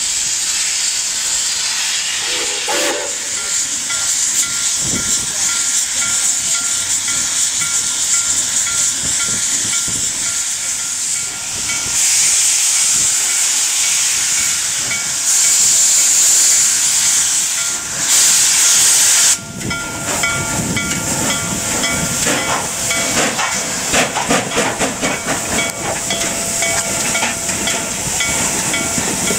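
Nickel Plate Road 765, a 2-8-4 Berkshire steam locomotive, hissing steam from its open cylinder cocks as it moves slowly along the track. Louder gusts of steam come about twelve, sixteen and eighteen seconds in, and irregular knocks run through the last third.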